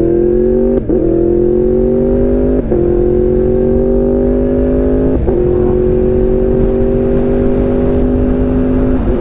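Yamaha MT-10's crossplane inline-four engine pulling hard under held throttle while being quick-shifted up through the gears without the clutch: four upshifts, each a brief hiccup as the quick shifter cuts the power, the engine note dropping and then climbing again, more slowly in each higher gear. Wind rush grows as speed builds.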